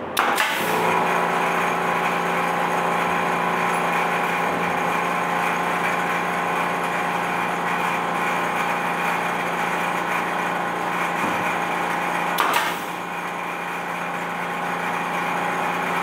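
A pneumatic nail gun fires with a sharp crack, and at once an air compressor's motor starts and runs with a steady hum. Another sharp crack comes about twelve seconds later.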